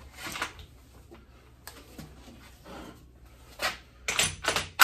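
Handling noises of work in progress: short scrapes and light knocks at irregular intervals, with a sharp knock just before the end.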